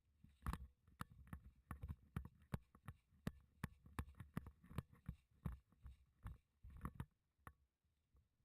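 Faint run of soft knocks and clicks, about two to three a second, over a low rumble, stopping about a second before the end.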